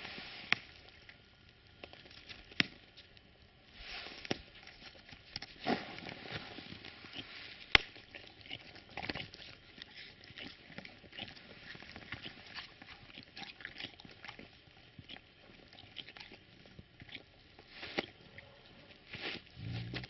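A young Tibetan mastiff scuffling in the snow right at the microphone: irregular crunches and scattered sharp clicks, one louder click a little before halfway and a soft low thump near the end.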